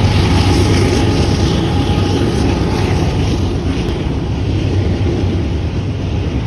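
Union Pacific intermodal freight train rolling past close by: a steady low rumble of double-stack container cars on the rails, easing off slightly as the locomotive moves away.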